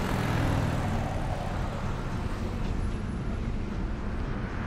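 Road traffic passing close by, with a heavy vehicle's low engine rumble loudest in the first second or so, then settling into a steady traffic noise.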